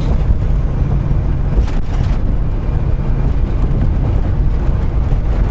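Semi-truck cab noise on the move: a steady, loud low rumble of engine and road.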